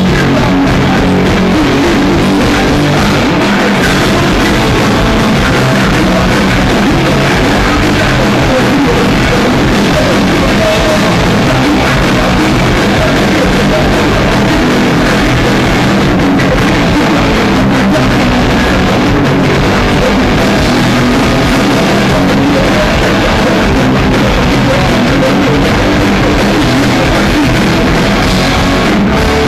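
Punk rock band playing live at full volume: distorted electric guitars and a drum kit, loud and unbroken throughout.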